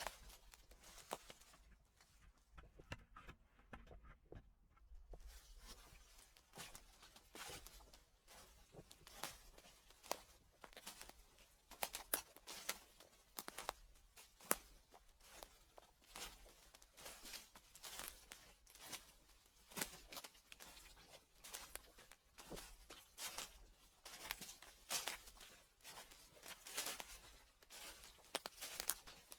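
Footsteps crunching through dry fallen leaves at a steady walking pace, about a step a second, each step a burst of crackling.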